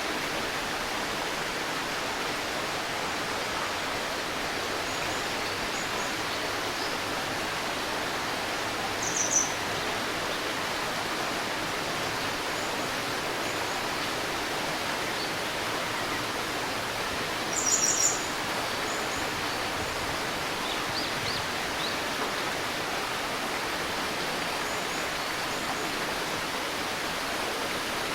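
A shallow river babbling steadily, with short high bird chirps about nine seconds in and again near eighteen seconds, and a few fainter calls between.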